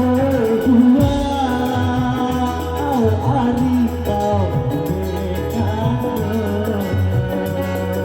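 A singer performing a song live over musical accompaniment, the voice carrying a wavering, ornamented melody above a steady bass line.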